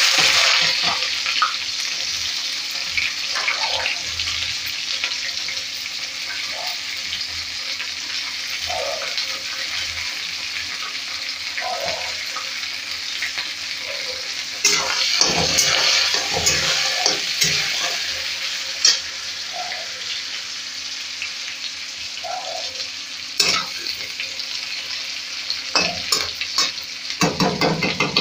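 Chopped onions sizzling in hot mustard oil in a steel kadhai, loudest at the start and then settling into a steady hiss. A steel spatula scrapes and clinks against the pan now and then, most around the middle and near the end.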